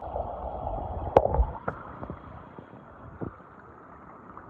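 Muffled water sound picked up by a phone microphone held underwater in shallow water: gurgling and sloshing, with a few sharp clicks about a second in and another around three seconds, easing off after that.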